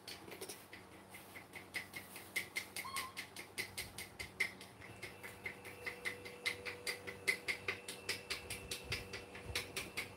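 Rapid run of light clicks and taps, about four or five a second, from utensils and a container handled while baby formula is being made up. A faint short squeak about three seconds in.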